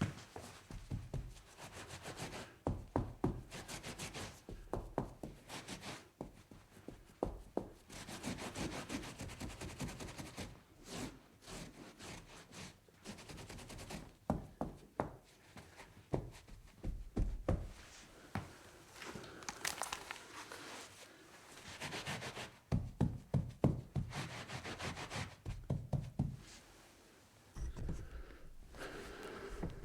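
Wiping and scrubbing on a tabletop: stretches of rubbing and scrubbing broken by frequent light knocks and taps.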